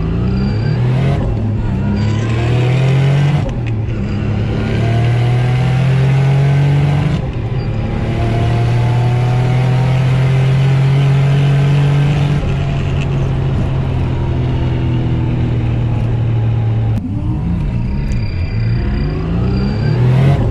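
Turbocharged 3.8-litre V6 in a Holden Commodore ute at full throttle on a drag-strip pass, heard from inside the cabin. Its revs climb in each gear, broken by quick manual gear changes about a second in, at about three and a half seconds and at about seven seconds. It holds high revs until about twelve seconds, then eases off as the car slows, with one more gear change near the end.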